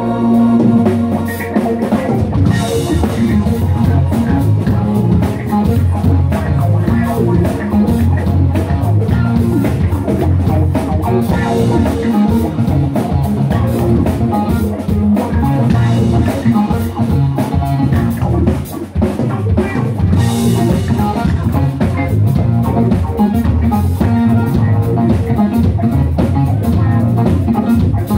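A live rock band playing: drum kit, electric guitar, bass guitar and keyboard together at a steady, loud level.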